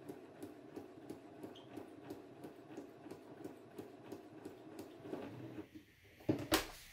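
Electric domestic sewing machine stitching slowly, its needle punching through paper with no thread, at about four stitches a second. It stops about five and a half seconds in, followed near the end by a single loud knock.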